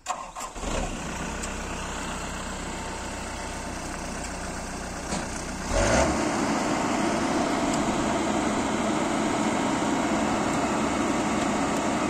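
A Kubota AR90 combine harvester's diesel engine is cranked and starts, then idles steadily. About six seconds in it revs up to a higher, louder steady speed.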